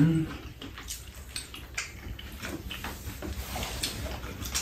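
Two people eating at a table: spoons and chopsticks clicking lightly against ceramic bowls, with mouth sounds of chewing. A short voice sound right at the start.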